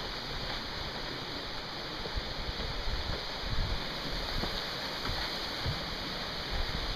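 Steady rushing of a creek flowing through the canyon below, with an uneven low rumble under it.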